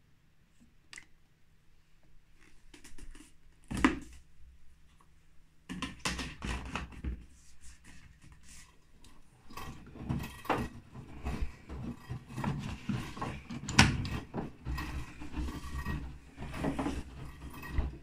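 Plastic knocks and clatter from handling a fabric-softener bottle and a washing machine's detergent drawer. A single sharp knock comes about four seconds in, then an irregular run of knocks and rattles from about six seconds on.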